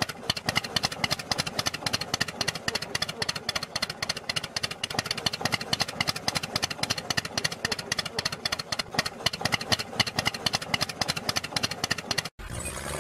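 Tractor-engine chugging, a fast, even putt-putt of about ten beats a second, that stops abruptly near the end.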